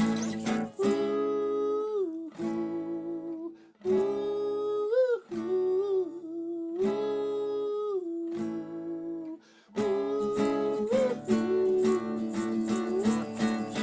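Acoustic guitar music with a wordless melody of long held notes over it, sliding between pitches in phrases broken by short pauses.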